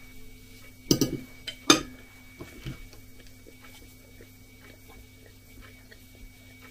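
A metal fork set down on a china plate, two short clatters about a second in and just before two seconds in, then faint light ticking and chewing at the table.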